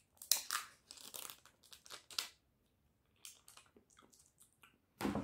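Small plastic tub of garlic dip being opened by hand: the lid worked off and the seal peeled, a run of short crinkling, crackling noises over the first two seconds or so, then fainter clicks, and one brief louder rustle near the end.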